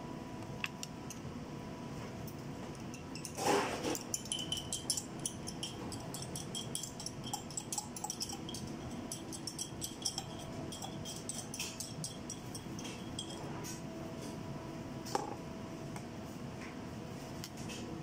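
Kitchen clatter: a short rush of sound about three and a half seconds in, then a run of small clinks and taps of utensils and dishes, over a steady background hum.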